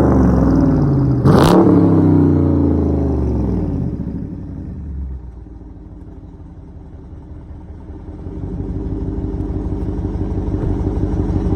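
Dodge Charger Daytona's Hemi V8 through a Flowmaster Outlaw exhaust: engine revs falling away, with a sharp crack about a second in. The engine then quiets for a few seconds and comes back up to a steady, louder run near the end.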